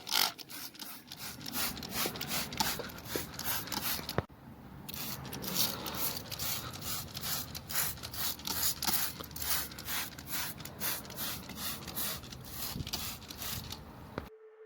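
Rapid rhythmic scraping strokes, about three to four a second, with a short pause about four seconds in.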